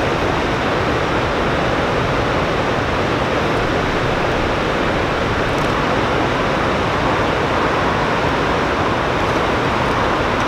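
Loud, steady rush of turbulent river water, an even noise that does not change.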